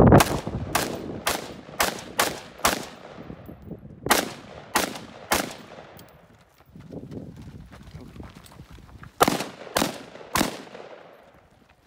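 Gunshots fired in quick strings by a competition shooter: about six shots half a second apart in the first three seconds, three more around four to five seconds in, then, after a pause, four rifle shots in quick succession near the end, each with a short echo.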